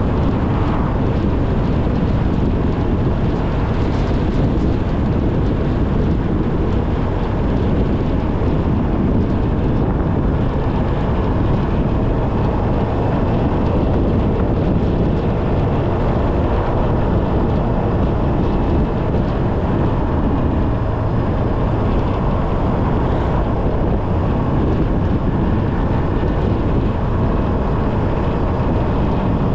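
A car driving: steady road, engine and wind noise with no change in pace.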